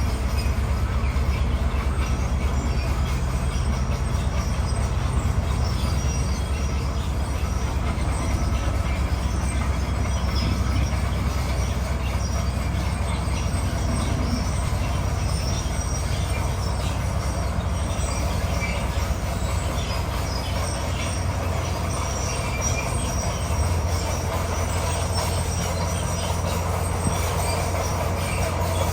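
Crawler bulldozer working: its diesel engine runs in a steady low drone while the steel tracks squeal and clank.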